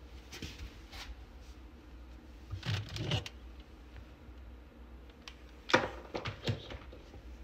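Clicks, knocks and rustles of objects being handled on a shelf as a hair dryer is lifted, with one sharp knock about three quarters of the way in.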